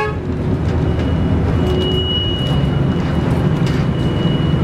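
AS1000 diesel railcar running, heard from inside the passenger cabin: a steady low rumble of engine and wheels on the rails, with a thin high-pitched whine coming and going from about a second in.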